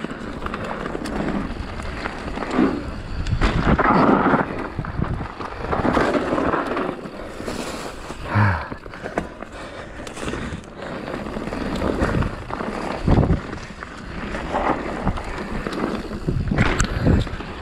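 Mountain bike ride down a dry dirt singletrack: tyres rolling and crunching over dirt and dead leaves, with repeated knocks and rattles as the bike hits bumps, and low wind rumble on the microphone that swells with speed.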